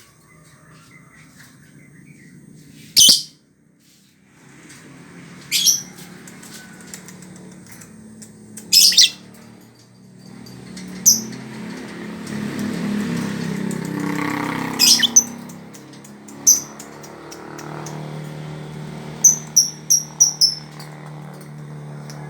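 Lovebird giving sharp, high-pitched chirps, single calls every few seconds and then a quick run of about five near the end, over a low steady background hum.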